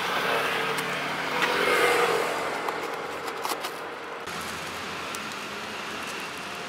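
Road traffic going by, one vehicle passing loudest about two seconds in, with a few light taps from a cardboard pizza box being closed.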